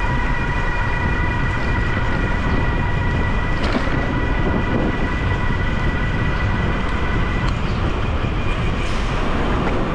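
Steady wind and road rush while riding an e-bike through city streets, with a steady high whine of several even tones over it that cuts off about three quarters of the way through.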